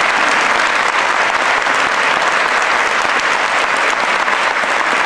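Large audience applauding, a dense and steady clapping.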